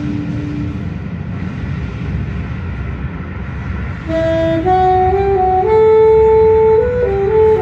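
A low, noisy drone of recorded backing music; about four seconds in, an alto saxophone enters, playing a slow phrase of held notes that step upward.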